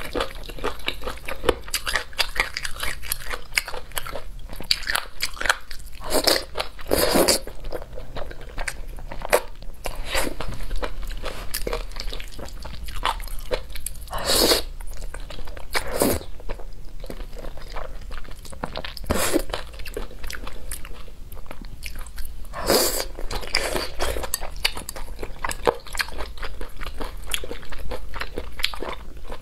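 Close-up eating sounds of spicy fire noodles with boneless chicken feet: wet slurping of noodles, chewing and crunchy bites, with several louder slurps spread through.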